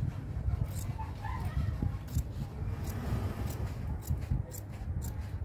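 Scissors snipping and a collar band of fabric being handled at a sewing machine table: scattered sharp clicks over a steady low rumble.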